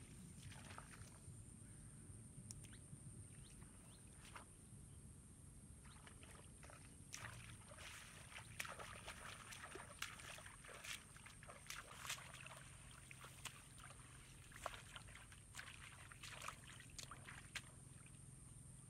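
Faint splashing and sloshing of shallow muddy water: bare feet wading, then hands groping through the water and mud, with many small scattered splashes.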